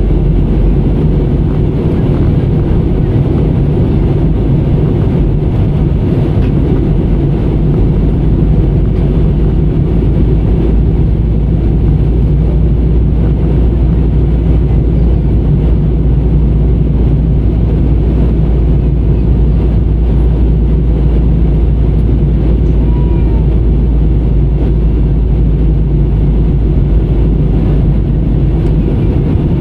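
Steady low roar of airliner cabin noise, the engines and airflow heard from inside the passenger cabin.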